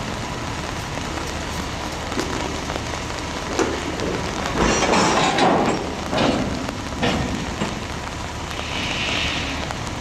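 Steady rain noise, with a louder burst of noise and a few sharp knocks in the middle and a faint steady whine underneath.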